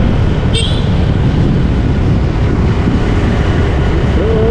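Motorcycle ride heard from the rider's own microphone: steady rumble of engine, road and wind. A brief high-pitched sound comes about half a second in.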